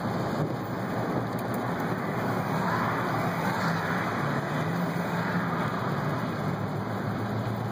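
Steady noise inside a car driving on a wet road in rain: tyre hiss and spray over a low engine hum.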